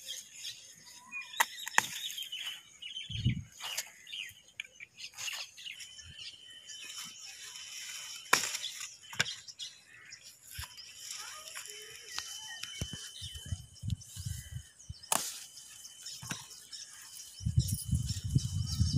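Eggplant leaves and stems rustling and crackling close to the microphone as the plants are handled during picking, with scattered sharp clicks. Low rumbling handling noise comes in near the end.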